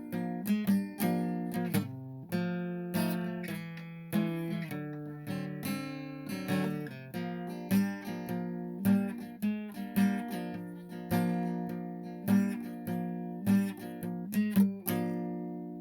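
Acoustic guitar music: picked and strummed notes, each struck and fading, at a steady pace.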